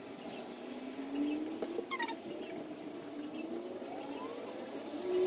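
Petrol being poured from a plastic jerry can into a Victa lawn mower's fuel tank, gurgling, with its pitch rising in slow glides again and again as the tank fills.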